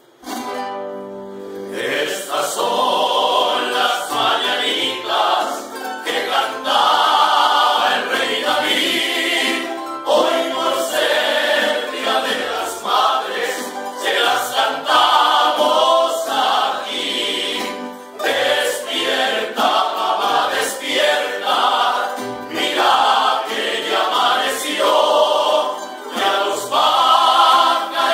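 A group of voices singing a song, thin-sounding with almost no bass.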